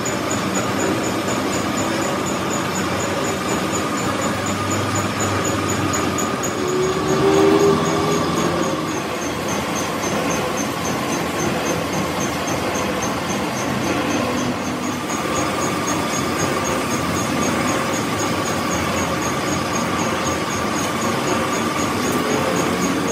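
Workshop machinery running steadily, with a constant hum-like tone and a faint fast regular ticking; a brief louder swell about seven seconds in.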